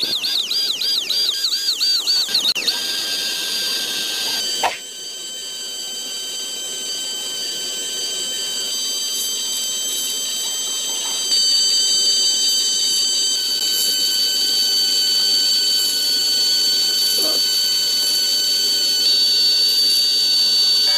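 High-pitched electronic tones: a fast warbling tone for the first few seconds, then several steady whining tones held together, with a single click about five seconds in and a step up in loudness about eleven seconds in.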